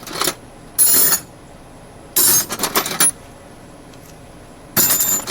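Metal hand tools (wrenches, sockets, a ratchet) clinking and clattering against each other in about four separate bursts as they are handled and set into a toolbox.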